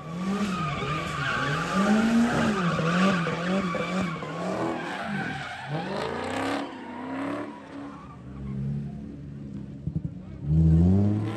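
Cars doing donuts: engines revving up and down in quick repeated swells with a steady tyre squeal through roughly the first half. Lower engine revs follow, then a Nissan 350Z's V6 revs sharply near the end.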